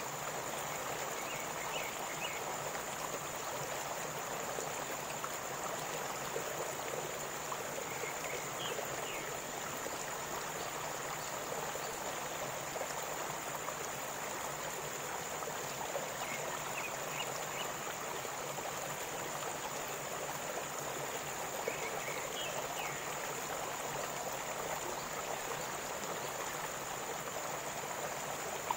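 Waterfall and river water rushing steadily over rocks.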